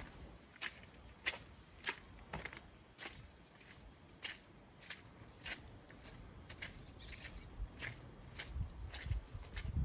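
Steady walking footsteps on a woodland path, a short crunch about every 0.6 s. Small birds call over them: a high descending trill a few seconds in and a thin chirp near the end.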